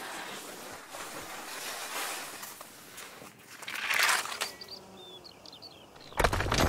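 Ski bases hissing over snow, then a loud scrape of skis across bare rock about four seconds in. It is followed by a few faint bird chirps, and a sudden loud rush of noise comes in near the end.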